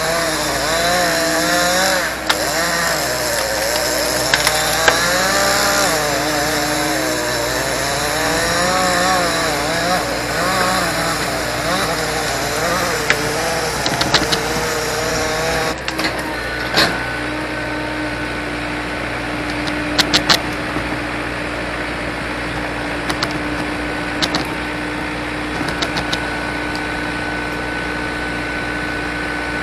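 Engines working: one engine's note rises and falls unevenly for about the first sixteen seconds, like a saw or machine under varying load, over a steady engine hum. After that the steady hum carries on with a few sharp clanks.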